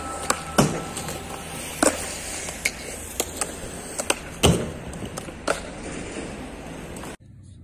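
Skateboard wheels rolling on smooth concrete, broken by a series of sharp wooden clacks as boards are popped and land. The loudest clacks come about half a second, two seconds and four and a half seconds in. The sound cuts off suddenly near the end.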